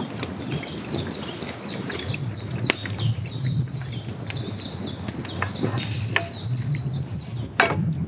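Water poured from a plastic bottle into a small cooking pot, gurgling for about five seconds before stopping near the end, with a campfire crackling and snapping throughout.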